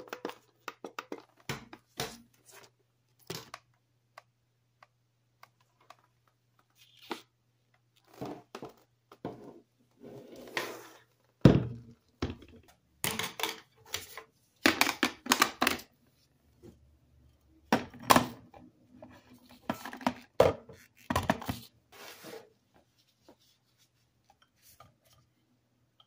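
Irregular clicks, taps and knocks of hands handling a plastic single-serve coffee maker, pressing its buttons and shifting its parts, in clusters with the loudest knocks in the middle. A faint steady low hum runs under the first half.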